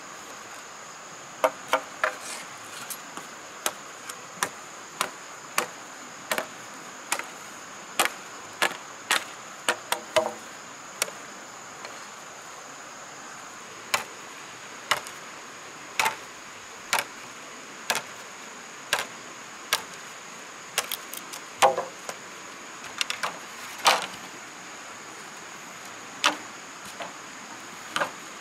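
A tool striking wood in sharp, irregular chops or knocks, roughly one a second with a few short pauses. Insects buzz steadily underneath.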